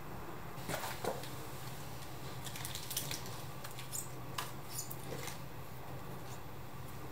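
Small irregular clicks, scrapes and rustles of a thin plastic nursery pot flexing and a root-bound Ficus umbellata's packed root ball and soil being worked loose from it, over a faint steady hum.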